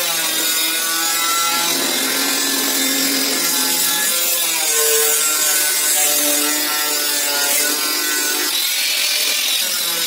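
Handheld angle grinder with a cut-off disc cutting through sheet steel: a loud, steady harsh grinding hiss, with the motor's whine shifting in pitch a few times as the disc is worked along the cut.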